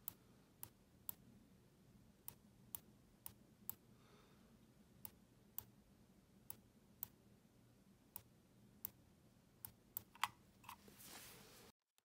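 Huano blue shell blue dot mouse microswitch clicking as a finger presses it over and over, one crisp click every half second or so. A brief rustle follows near the end, then the sound cuts off.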